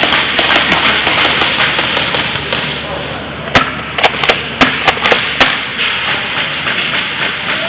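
Airsoft gunfire: a string of sharp, irregular cracks, faint at first and then a cluster of about eight loud ones in the middle, over a steady rushing noise.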